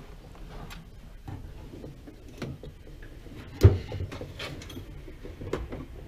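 Drawers of a Homak steel tool chest being slid open and shut, with scattered clicks and rattles and one sharp knock about halfway through.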